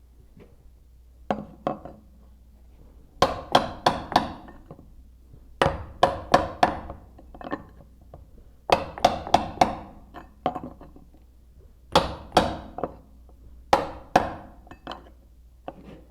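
Hammer striking a packing iron in quick runs of three to five sharp blows with short pauses between runs, tamping oakum down into a cast iron hub joint.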